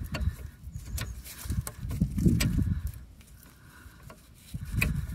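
Wind gusting and buffeting on the microphone in uneven low rumbles that ease off for a moment past the middle, with scattered light clicks as a ring spanner is worked on a brake caliper's bleed nipple.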